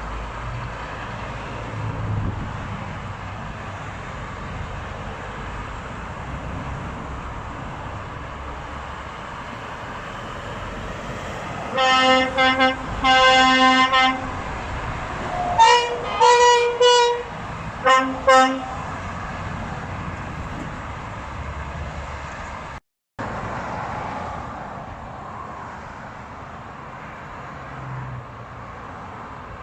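Truck air horns blowing over steady road traffic noise. About halfway through come two longer, lower blasts, then several quick, higher-pitched blasts and a final short one.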